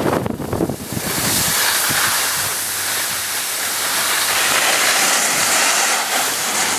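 Steady hiss of sliding over hard-packed piste snow, with wind buffeting the microphone for about the first second.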